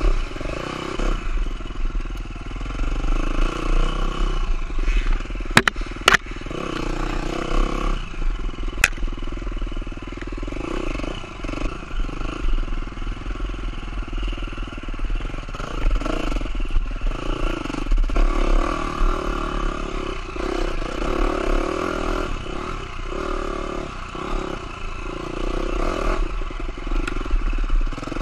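KTM SX-F four-stroke dirt bike engine revving up and down, rising and falling with the throttle. A few sharp knocks come through it: two close together about six seconds in and another near nine seconds.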